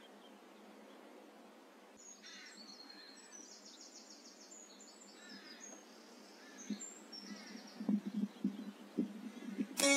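Small birds chirping and trilling in short rapid phrases. Low knocks and rustles follow in the second half, and a single sharp crack comes just before the end.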